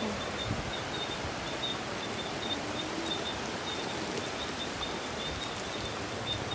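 Steady rushing noise of strong storm wind and rain, even and unbroken, with a faint high-pitched chirping repeating over it.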